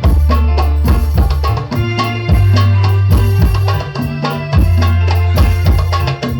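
Sholawat devotional music played loud through a sound system, with hand-drum percussion and a heavy bass.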